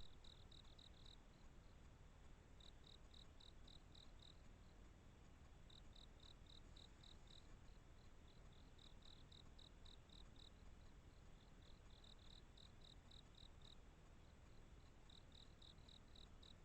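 Faint cricket song: trains of about seven or eight short, high chirps at roughly five a second, each train under two seconds long, repeating every few seconds over a low hiss.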